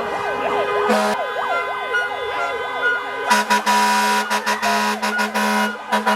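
Many car horns sounding at once in a steady din of overlapping tones, with a siren wailing up and down through them. About three seconds in, a louder horn joins, blasting in quick repeated pulses.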